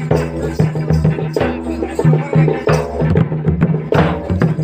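Odia folk dance music: a double-headed barrel drum (dhol) beaten in a fast, dense rhythm with a stick and the hand, over a held pitched melody.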